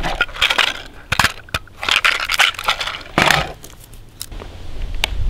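.22 rimfire cartridges rattling in a plastic ammo box as fingers pick them out and press them into a Ruger 10/22 rotary magazine: clusters of small clicks and rattles, then one sharp click about five seconds in. Wind noise on the microphone builds near the end.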